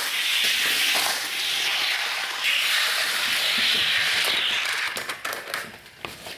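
Toy van rolling down a toy racing track: a steady rushing hiss of its wheels on the track, fading about five seconds in, then a few light clicks and knocks.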